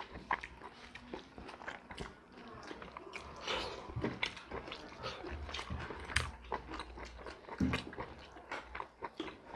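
Eating by hand at close range: irregular wet smacks and clicks of chewing and of fingers squishing and mixing rice with fish curry on the plates.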